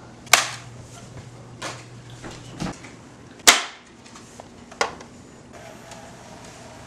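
Half a dozen sharp knocks and clicks spread about a second apart, the loudest about three and a half seconds in: a disc and its case being handled and loaded into a DVD player.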